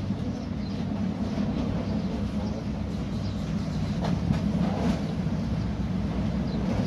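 Steady low mechanical rumble, with a few faint rustles of paper being handled about four to five seconds in.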